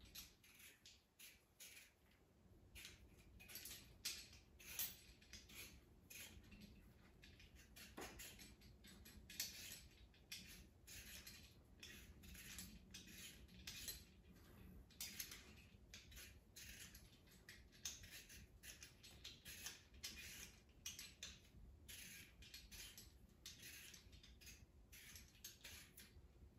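Vegetable peeler scraping the skin off a raw potato in faint, irregular short strokes, about one or two a second, with a single sharper click partway through.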